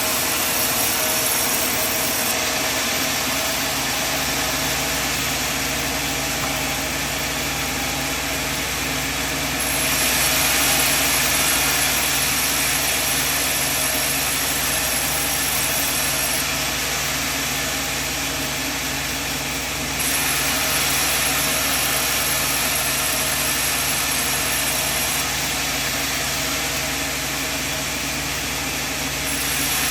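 Sawmill machine running with a steady engine-like hum and a hiss of noise over it. The sound changes abruptly about ten and again about twenty seconds in.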